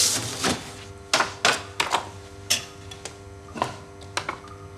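Sheets of paper rustling and tapping against a desk as papers are gathered and handed over: a string of short crisp rustles and clicks, roughly one or two a second. A faint steady musical drone sits underneath.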